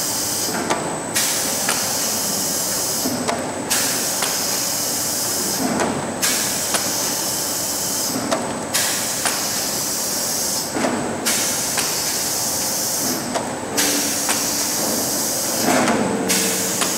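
Pneumatic soap stamping machine running in a regular cycle about every two and a half seconds. A steady hiss of compressed air cuts out briefly once per cycle, and short knocks and clicks from the stamping and pick-up action come at the same points.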